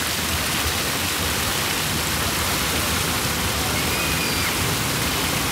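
Steady rushing and splashing of water from city fountains, an even hiss without pauses.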